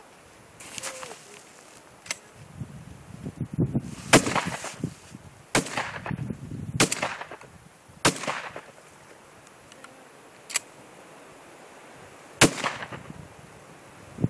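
Shotgun shots fired in a string, about one to one and a half seconds apart at first, each followed by a short echo; five loud shots, with a few fainter, sharper cracks between them.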